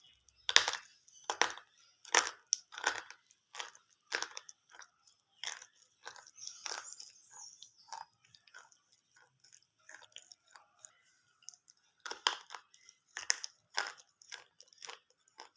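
Slate pencils being bitten and chewed close to the microphone: a steady run of sharp crunches about every 0.7 s. The crunches grow fainter for a few seconds in the middle, then get loud again near the end.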